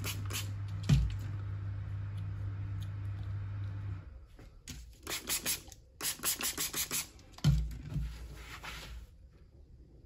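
A steady low hum with a knock about a second in. Then, from about four seconds in, a few seconds of quick scratchy rubbing strokes in short runs, with another knock, as a pink pad is rubbed over a wet whetstone held in a stone holder. It goes quiet near the end.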